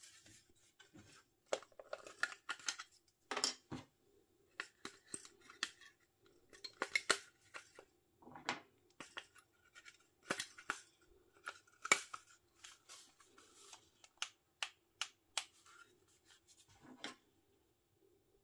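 Irregular sharp clicks and short scrapes of small hard plastic parts being handled, from an opened electric fly zapper, over a faint steady hum.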